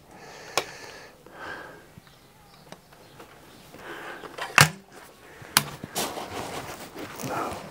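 Weihrauch HW99S .22 break-barrel air rifle being cocked and loaded by hand. A light click comes under a second in, a sharp clack about halfway through as the barrel is snapped shut, and two lighter clicks follow shortly after.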